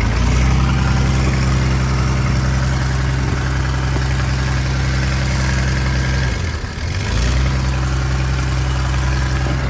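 Kobelco SK210LC excavator's Mitsubishi diesel engine running steadily just after starting, with a low, even note. About six and a half seconds in it briefly dips and stumbles, then settles back to the same steady run.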